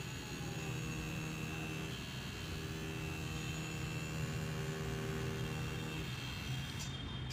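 Tattoo machine buzzing steadily while its needle lines lettering into a synthetic practice skin pad.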